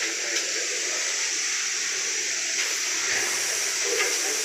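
Steady, loud hissing noise in an underground mine tunnel, with a few faint clicks.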